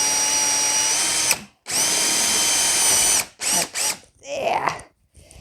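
Power drill driving a screw to fix a door handle to a wooden door: the motor whines steadily in two runs of about a second and a half each with a short break between, then gives a few short bursts.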